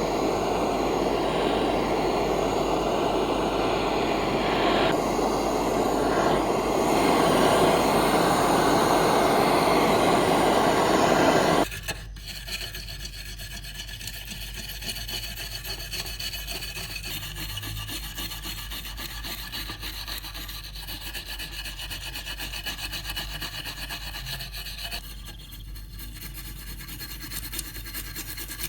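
Steady abrasive scraping, as in sanding or rubbing down a surface, loud for about twelve seconds and then stopping suddenly. It gives way to quieter, lighter rubbing.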